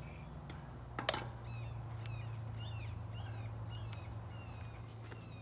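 A bird chirping repeatedly in short, quick, curving notes over a steady low hum, with one sharp knock about a second in.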